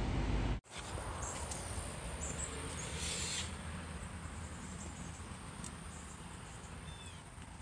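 Steady low rumble inside a car cabin that cuts off abruptly under a second in. A much quieter low hum follows and slowly fades, with faint rustles from the phone being handled.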